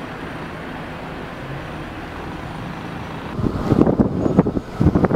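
Steady road-traffic noise. About three and a half seconds in, louder irregular gusts of wind start buffeting the microphone.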